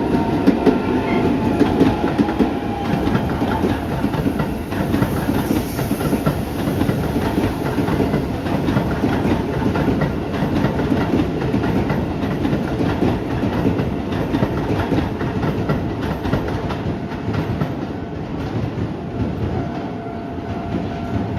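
Keikyu 600 series electric train rolling steadily past over a level crossing, its wheels clattering over the rail joints and crossing. A level-crossing warning bell rings, clearest at the start and again near the end.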